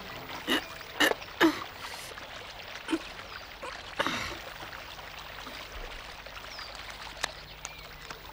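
Steady trickling of a stream, with several short, sharp sounds spread over the first four seconds.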